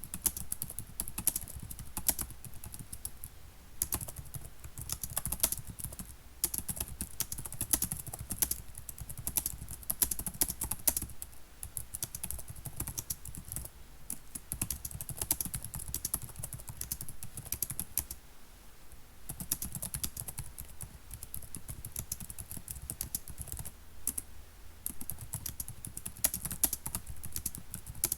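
Someone typing steadily on a computer keyboard: a fast, irregular run of key clicks with a few brief pauses.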